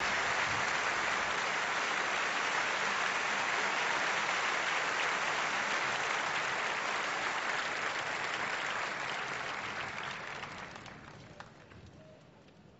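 Concert-hall audience applauding, steady at first and then dying away over the last few seconds.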